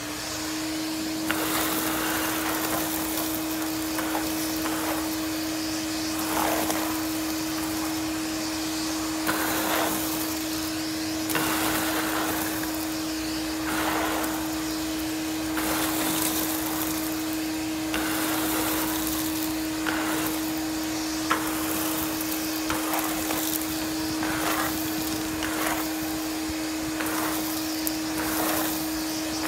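Ridgid NXT wet/dry shop vac running steadily with a constant motor whine. Irregular rushing noises come through as leaves are sucked up the hose.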